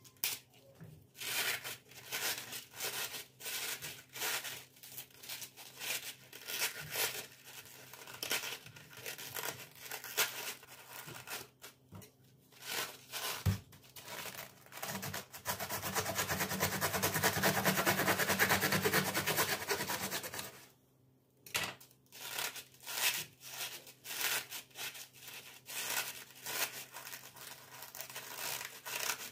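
Hands working food in a kitchen: a run of short, irregular tearing and scraping strokes, with a denser continuous rasp for about five seconds midway.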